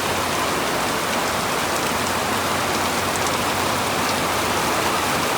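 Heavy rain pouring down in a steady, even hiss, with water gushing.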